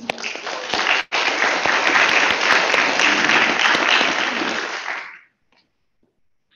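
Audience applauding, stopping about five seconds in.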